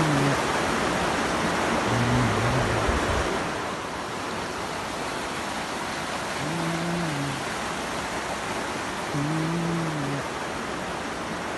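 Rushing water of a shallow, rocky mountain river pouring over stones, louder in the first few seconds and then softer. A low note swells and fades several times over it.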